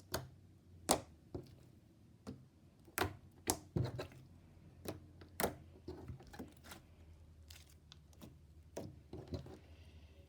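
Slime being squeezed and stretched by hand, its trapped air popping in sharp, irregular clicks about every half second to second, thinning out toward the end.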